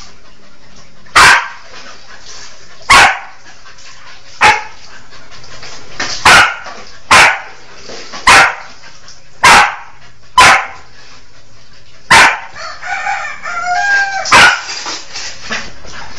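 A dog barking loudly: about ten single sharp barks, one to two seconds apart, with a few short higher-pitched calls between the last barks.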